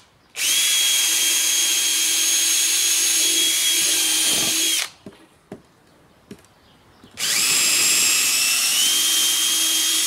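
Cordless drill-driver running under load as it drives screws through a plate into the wood of an aquarium root. There are two long steady runs with a short pause and a few clicks between them, and the motor pitch steps up slightly near the end of each run.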